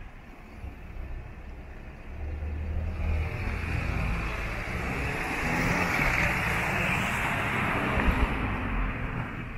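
A car passing close by, its engine and tyre noise swelling to a peak mid-way and then fading.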